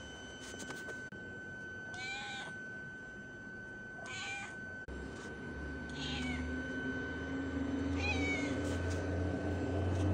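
Stray tabby cat meowing four times, about two seconds apart, each a short meow that drops in pitch at the end. A low hum grows in underneath from about halfway through.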